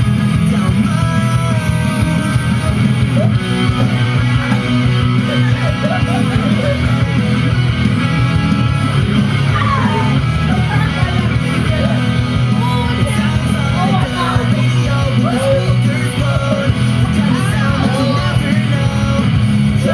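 Pop-rock song with singing, playing loud and steady.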